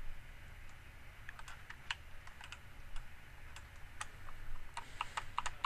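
Typing on a computer keyboard: scattered, irregular key clicks that come more often toward the end.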